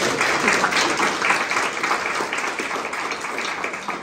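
Audience applauding: many people clapping at once, loudest in the first second or so and easing off slightly toward the end.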